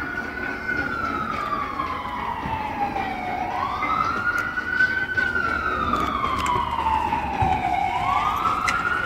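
Emergency vehicle siren wailing: a tone that sweeps quickly up and then slowly falls, repeating about every three and a half seconds, growing a little louder.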